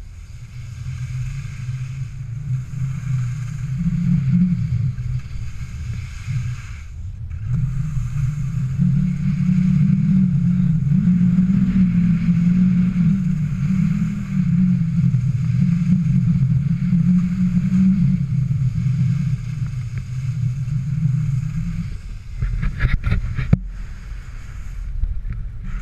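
Wind buffeting a pole-mounted GoPro microphone as a low rumble, over the steady hiss of telemark skis sliding on groomed snow. The snow hiss cuts out briefly about seven seconds in, and a few sharp knocks come near the end.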